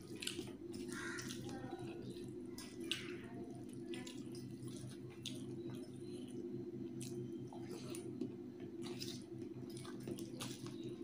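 Fingers mixing rice with thin chicken curry on a steel plate: soft wet squishes and small clicks, with chewing in between, over a steady low hum.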